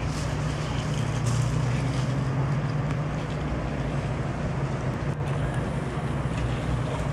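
A steady low engine hum under a continuous hiss, unchanging throughout.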